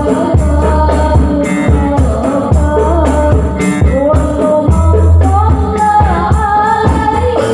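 Live Islamic sholawat song: voices singing a melody over a steady beat of frame drums and a hand drum, with sustained bass notes from electric bass and keyboard.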